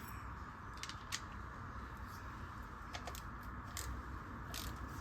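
A few light, sharp clicks scattered over a steady faint hiss and low hum.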